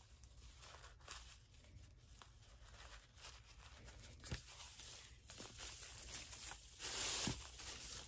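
Thin plastic tablecloth strips rustling and crinkling as they are handled and tied with thread, with a soft knock about four seconds in and a louder rustle near the end as the bundle is lifted.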